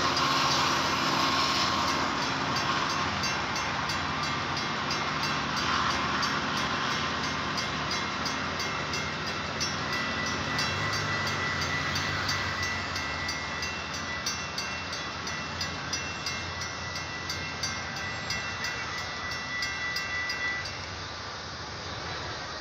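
Metra bilevel commuter train rolling past over a grade crossing, its rumble easing off over the first half as the last cars clear. Grade-crossing bells ring steadily at about two to three strikes a second, then stop abruptly about 20 seconds in.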